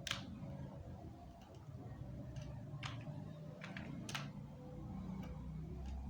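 Scattered faint clicks of a computer mouse and keyboard, a single click every half second to second, over a low steady hum.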